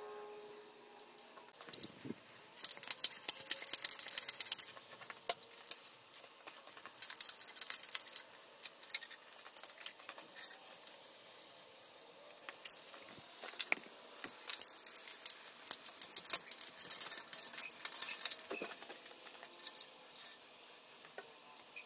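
Hand ratchet wrench clicking in several bursts of quick clicks, with metal tools clinking, as bolts are worked on an engine.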